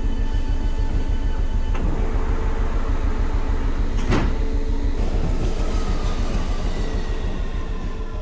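A vehicle running with a steady low rumble, with several steady tones above it that stop about two seconds in, and a sharp click about four seconds in.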